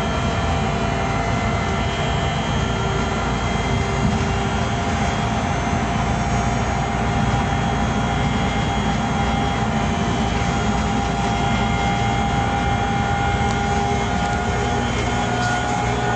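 Škoda 30Tr SOR trolleybus standing idle, its electrical equipment giving a steady whine of several held tones over a low hum. The tones shift slightly in pitch near the end.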